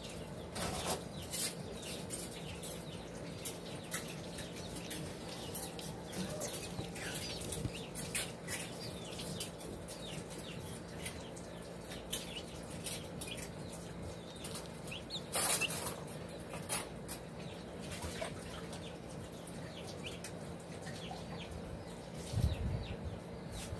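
Chicks pecking at food on a paper plate: scattered taps and scuffs, with soft clucking and peeping. A louder rustle comes about two-thirds through.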